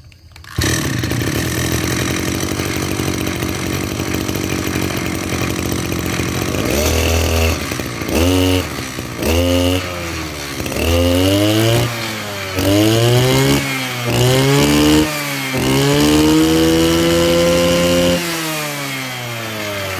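Kioritz SRE235 23cc two-stroke brush cutter engine starts up about half a second in and idles, then is revved about seven times from around seven seconds in, each rev rising and falling in pitch, the last held for a few seconds before it drops back to idle near the end.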